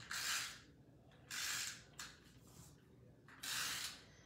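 Cardstock rubbing and sliding against paper: three short rasping strokes, each about half a second, in uneven spacing.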